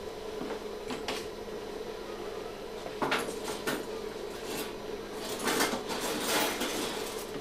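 Light clinks and clatter of small handled objects, a few sharp clicks a few seconds in, then a longer rustle, over a steady low hum.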